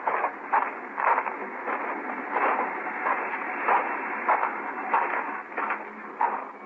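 Radio-drama sound effect of footsteps at a steady walking pace, a step roughly every half second, heard through the thin sound of an old broadcast recording.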